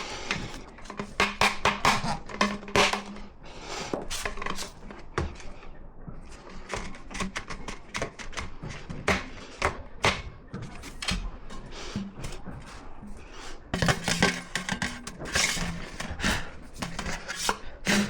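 Irregular knocks, taps and clatter from hand work with tools and building parts, with a few quick runs of rapid taps and louder knocks.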